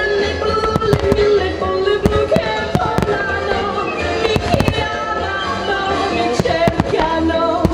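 Aerial firework shells bursting overhead, a rapid, irregular series of sharp bangs and cracks, over loud music playing throughout.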